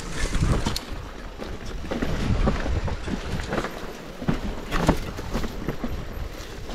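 Mountain bike ridden over a rough trail: wind buffeting the microphone, with irregular knocks and rattles from the bike over bumps, the sharpest about five seconds in.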